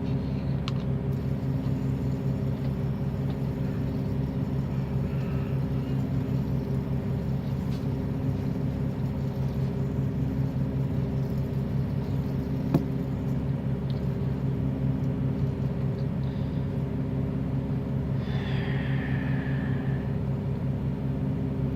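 Steady low mechanical hum of an idling engine, with an even pulsing throb. A faint higher sound comes in briefly near the end.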